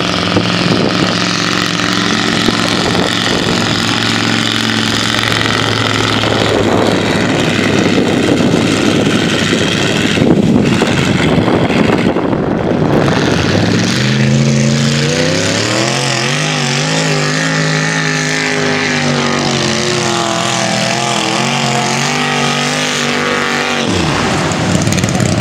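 Mud-bogging trucks and SUVs run hard through a deep mud hole. Their engines rev high with wheels spinning, over the rush of churned mud and water. In the second half one engine's pitch climbs and wavers with the throttle, then cuts off suddenly.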